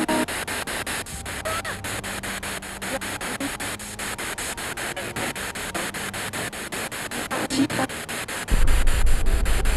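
Spirit box, a radio that rapidly sweeps through stations, hissing with static chopped several times a second, with brief fragments of radio voices that the listener is trying to hear as a spirit's reply. A louder low rumble joins near the end.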